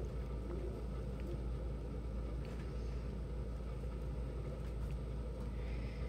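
Steady low background hum with a few faint ticks.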